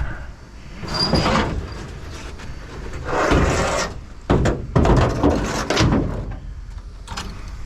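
A vehicle door being opened and shut, with several scraping noises and sharp knocks.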